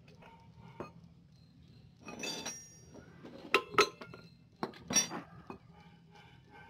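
Metal parts of a motorcycle's speedometer drive being fitted by hand into the front wheel hub: a short scraping rustle, then a few sharp metallic clinks.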